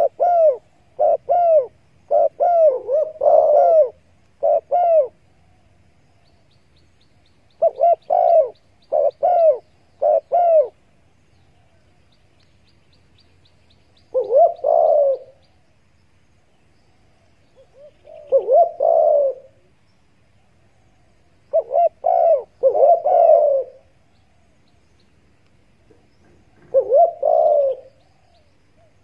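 Spotted doves cooing: groups of low, arching coo phrases, several in quick succession at the start, then shorter groups with pauses of a few seconds between.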